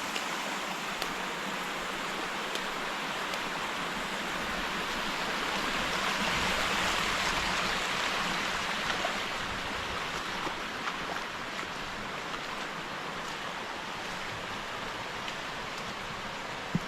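Creek water of the Left Fork of North Creek running over the rock in a steady rush, swelling a little about six seconds in and easing off toward the end.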